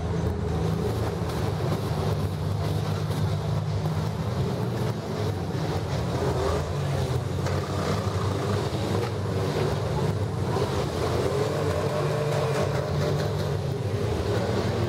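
Several minivan engines running at once in a demolition derby, revving up and down as the vans manoeuvre.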